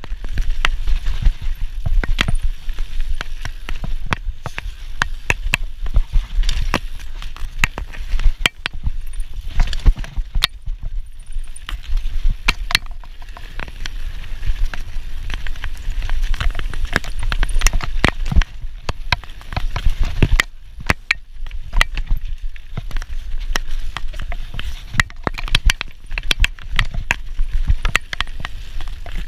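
Mountain bike ridden fast down a dirt forest trail: tyres rolling over dirt and roots, with a constant stream of rattles and knocks from the bike over the bumps and a heavy low rumble of wind on the camera microphone.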